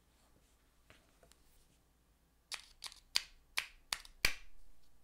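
A quick run of about six sharp metallic clicks and taps as a small watchmaker's lathe chuck is handled and a screwdriver is set against it, the last tap ringing briefly.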